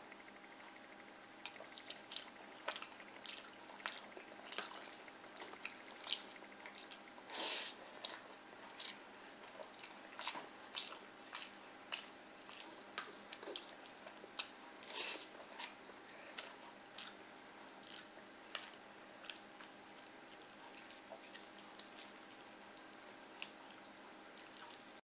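Close-up eating sounds of rice and fried fish eaten by hand: wet chewing and lip smacks, a string of short moist clicks about one or two a second.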